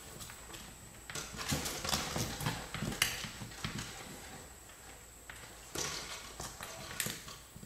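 Irregular light clicks, taps and short scrapes against a hardwood floor, in a busy cluster early on and a few more near the end.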